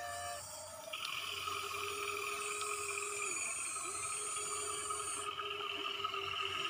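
Electric motors and gears of remote-control excavators, a Huina 1593 among them, whining steadily while the arms move. The whine gets louder about a second in, and its pitch dips briefly about three seconds in.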